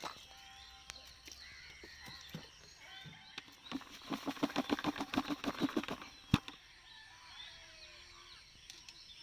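Birds calling at dawn, with many small chirps throughout and a rapid chattering run of pulsed calls in the middle, followed by one sharp knock.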